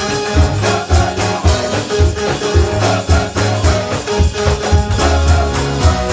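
Live gospel music from a church band: a rhythmic bass line, drum hits and tambourine.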